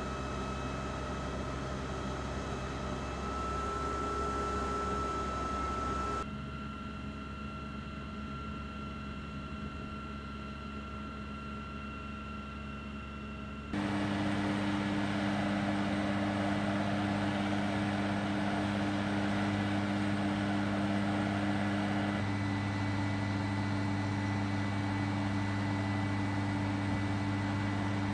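Steady machine drone of firefighting equipment that changes abruptly twice. From about halfway on, an airport crash fire truck's engine runs with a steady low hum, its pump feeding the roof turret's water stream.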